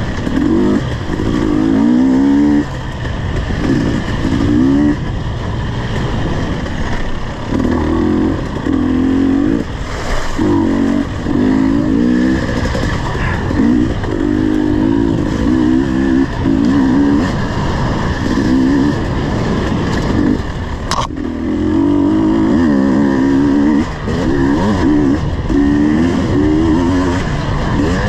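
KTM 250 EXC two-stroke dirt bike engine under riding load, its pitch rising and falling over and over as the throttle is worked. A single sharp knock comes about two-thirds of the way through.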